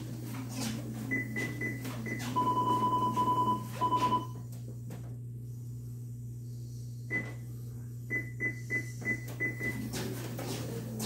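Treadmill console beeping as its buttons are pressed: a few short high beeps, then a rapid run of lower beeps lasting about two seconds, then about seven short high beeps near the end, over a steady low hum.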